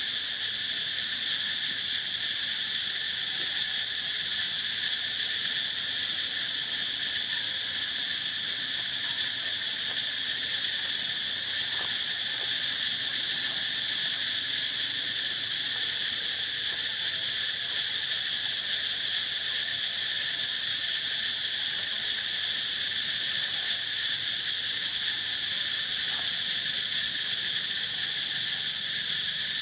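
Steady, high-pitched drone of a chorus of insects, with no change in level or pitch.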